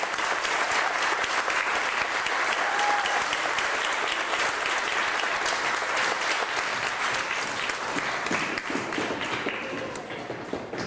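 Audience applauding at the end of a dance, the clapping thinning out and fading over the last few seconds.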